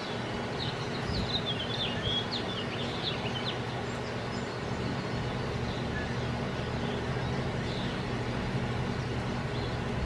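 Small songbirds at a seed feeder chirping in a quick run of short, high twitters during the first few seconds, with a few fainter chirps later. Under it runs a steady low background hum.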